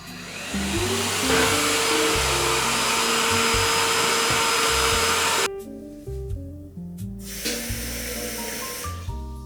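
Vacuum cleaner switched on: its motor whine rises over the first second, then runs steadily under a loud rush of air. It cuts off suddenly after about five seconds, and a shorter, fainter burst follows near the end, over soft background music.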